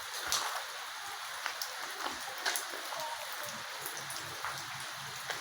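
Rain falling: a steady hiss with irregular sharp ticks of drops landing close by.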